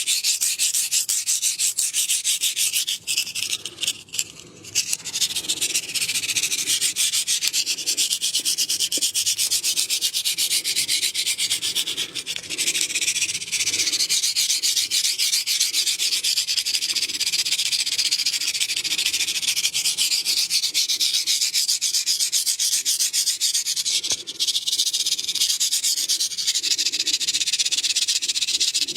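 Close-miked, continuous fast rubbing and scratching of hands on skin and hair during a massage, hissy and dense, easing off briefly a few seconds in and again near the middle. No neck cracks stand out.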